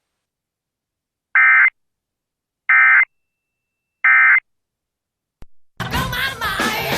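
Emergency Alert System End-of-Message data signal: three short, identical bursts of buzzy two-tone digital data, evenly spaced, marking the end of the alert. A click follows about five seconds in, and a louder, busier sound starts shortly before the end.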